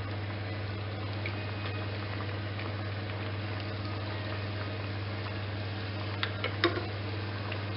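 Breaded croquettes frying in hot oil: a steady sizzle with scattered small crackles over a steady low hum, and a few sharp clicks about six seconds in.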